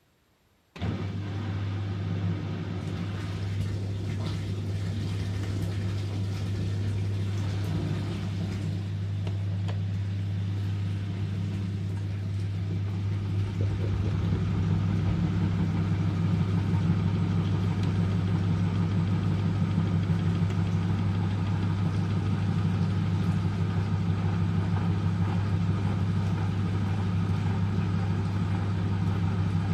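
M eurotech EW 450 washing machine (built by Antonio Merloni) starting up abruptly about a second in, then running with a steady low hum. It gets louder about halfway through, in its rinse-and-spin stage.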